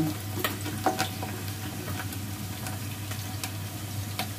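Onions sizzling as they fry in hot oil, browned to a reddish colour, while a spoon stirs and scrapes the pot with a few sharp clicks.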